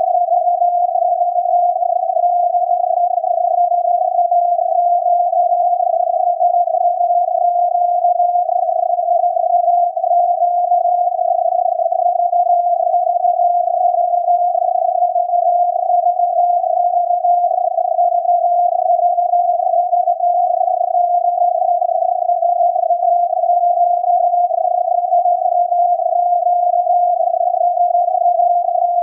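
VLF radio reception of SAQ's Alexanderson alternator at 17.2 kHz, heard through the receiver as a tone of about 700 Hz in a narrow band of filtered static. The alternator is sending the automated punched-tape 'VVV DE SAQ' Morse test.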